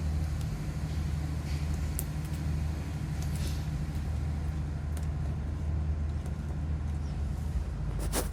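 Steady low drone inside a diesel train's passenger coach, with a few faint clicks and one sharp click near the end.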